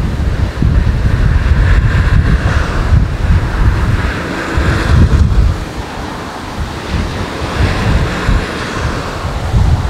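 Wind buffeting the microphone in uneven gusts, over the distant hiss of an Airbus A380's jet engines as the airliner comes in on approach with its landing gear down.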